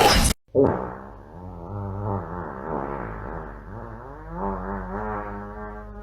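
A long, drawn-out fart with a low pitch that wavers up and down, lasting about six seconds, with a steady low hum beneath it. It starts just after a burst of music cuts off.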